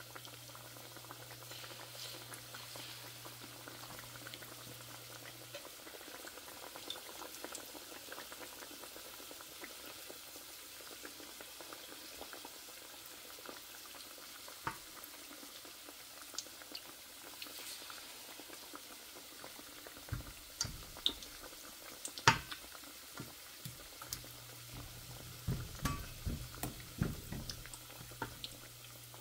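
Chicken wings cooking in a pot of bubbling liquid, a steady bubbling hiss. Scattered small clicks run throughout. About two-thirds of the way in comes a run of louder knocks and clatters from utensils or the pot.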